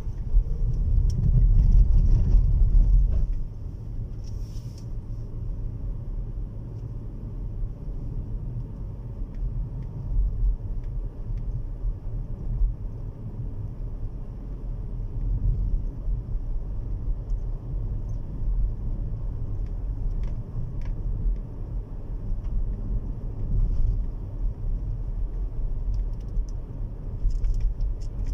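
Car driving, heard from inside the cabin: a steady low rumble of engine and tyres on a wet road, louder for the first three seconds or so, then even.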